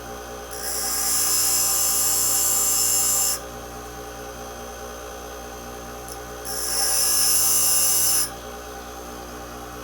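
Bench grinder motor running steadily while the tip of a steel drill bit is pressed against the spinning wheel twice to sharpen its cutting edges. Each contact is a loud hissing grind, about three seconds the first time and about two seconds the second.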